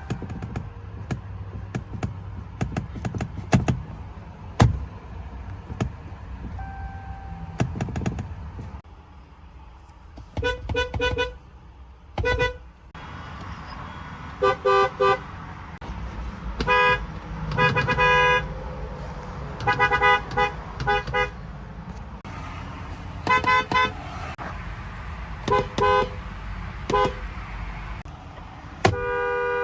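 Car horns honking in a series of short toots, many in quick pairs or threes, after several seconds of clicks and knocks. A longer steady honk starts near the end.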